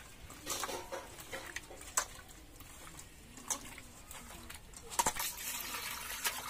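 Small fish being washed by hand in a stainless-steel bowl of water: scattered splashes and clinks of the fish and hands against the bowl. About five seconds in, water is poured from a plastic mug into the bowl, a louder rush of water for about a second.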